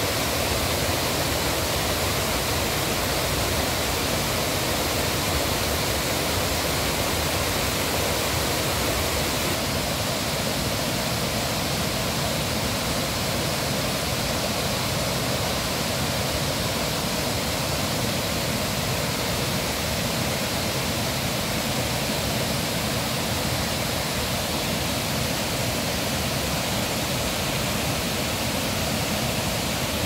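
Waterfall water rushing steadily over rock tiers as an unbroken wash of noise. Its tone shifts slightly about ten seconds in.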